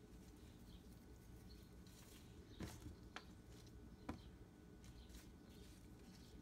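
Near silence: a low room hum with three faint light ticks in the middle, as herb sprigs are laid into a cast iron skillet. There is no sizzle from the oil.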